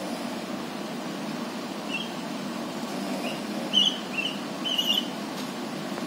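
Javan mynas giving a handful of short, high chirping calls, starting about two seconds in and coming thicker near the end, over a steady hum of road traffic.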